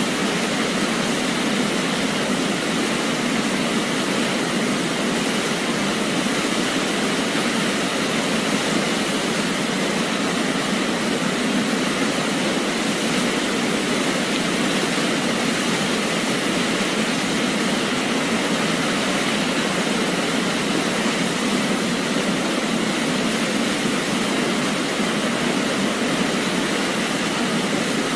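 Waterfall: a steady, unbroken rush of falling water that does not change in level.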